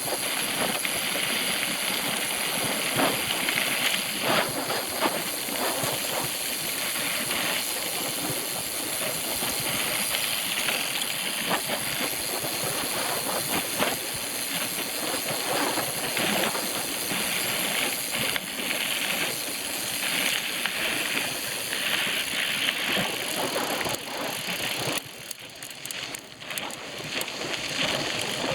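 Bicycle ridden over a rough trail: steady tyre noise with frequent clicks and rattles from the bike, easing briefly near the end.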